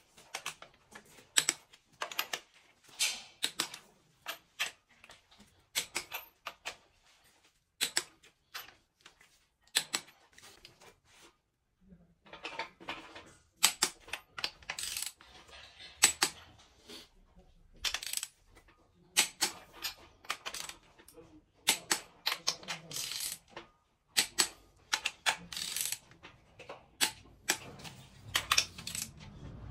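Ratchet and torque wrench clicking in irregular runs of sharp clicks with short pauses, with metal clinks of the socket on the bolts, as cylinder head bolts are tightened to torque in stages (stage two, 80 Nm).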